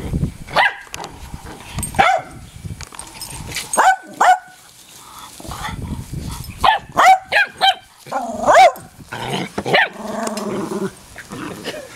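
A Weimaraner puppy and a small black-and-white dog at play: a run of short, high-pitched barks and yips, thickest just past the middle, and a low growl lasting about a second near the end.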